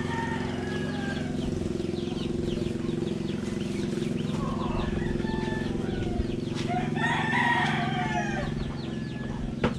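Roosters crowing several times over a steady low hum that stops suddenly near the end.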